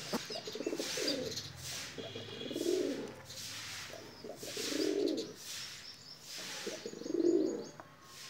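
Domestic pigeons cooing: a low rolling coo repeated about every two seconds.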